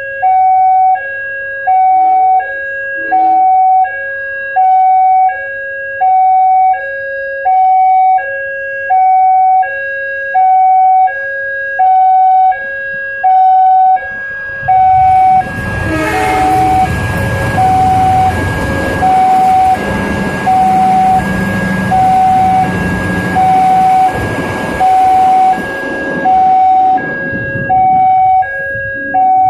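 Railway level-crossing warning siren: an electronic alarm of several steady tones at once, pulsing on and off about once a second. From about 15 to 26 seconds in, a passing train's rumble and rushing noise rises under the alarm.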